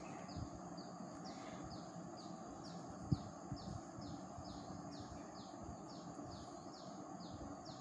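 A bird chirping over and over, faint, about three short falling chirps a second, over a low steady background hum. A single light tap comes a little after three seconds in.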